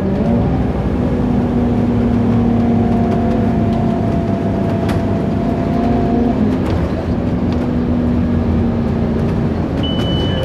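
Scania OmniCity bus heard from inside the saloon while under way: a steady engine and drivetrain drone with a held whine over the road rumble. Right at the end, a short high beep of the stop-request signal.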